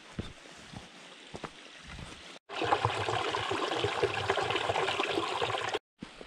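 A small mountain stream trickling and splashing over rocks, starting abruptly about two and a half seconds in and cutting off just as suddenly near the end.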